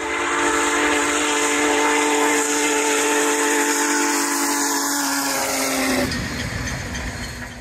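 Diesel locomotive air horn sounding a steady chord of several notes. Its pitch sags a little as the locomotive passes, about five to six seconds in, and then the horn stops, leaving the low rumble of the train rolling by.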